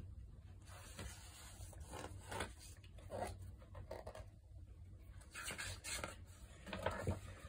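Faint rubbing and soft scrapes, a few at a time, from a paper picture book being handled.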